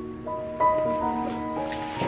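Background instrumental music, held notes changing pitch every half second or so.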